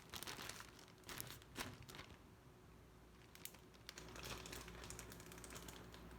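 Faint crinkling and rustling of a plastic food bag being handled, in a few short bursts.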